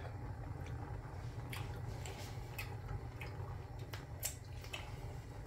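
A few faint, scattered clicks of a spoon against a cast-iron Dutch oven as chili is scooped out to taste, over a steady low hum.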